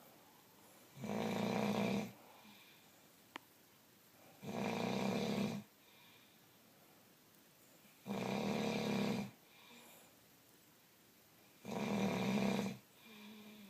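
Slow, regular snoring: four snores about three and a half seconds apart, each lasting about a second, with quiet breathing between them. A single sharp click sounds between the first and second snores.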